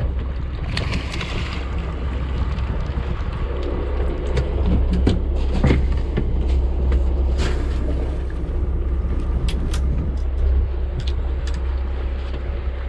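Steady low rumble aboard a fishing boat at sea, with scattered sharp clicks and knocks.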